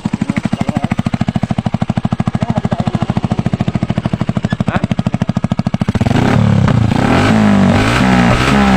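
Honda TMX125 single-cylinder four-stroke idling through a home-made open exhaust pipe made from a Baygon can, a loud, even popping of about a dozen beats a second. About six seconds in, music comes in over it and becomes the loudest sound.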